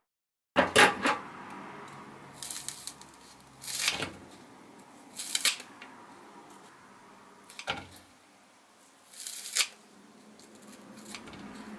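Kitchen scissors snipping through a green onion stalk, about seven sharp cuts spaced a second or two apart, the first ones the loudest.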